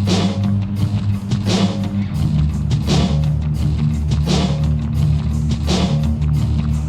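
Background rock music with guitar and drums, a steady beat with a cymbal stroke about every second and a half, and the bass shifting to a lower note about two seconds in.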